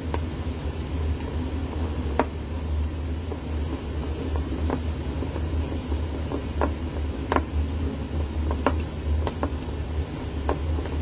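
Chopsticks clicking irregularly against a ceramic bowl while mixing egg into rice, a sharp tick every second or so. A steady low hum runs underneath.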